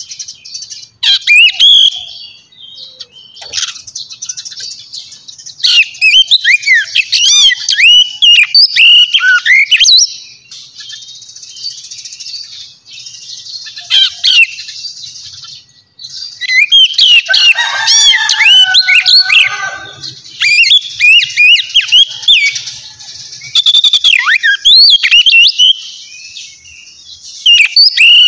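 Small birds chirping and twittering in bouts of rapid, sweeping high notes, with a lower, warbling stretch about two-thirds of the way through.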